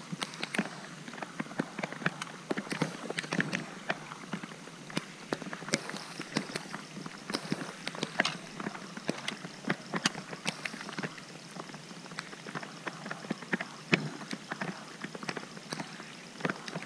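Rain falling on open water and on a kayak: a steady hiss broken by many irregular sharp ticks of drops striking close by.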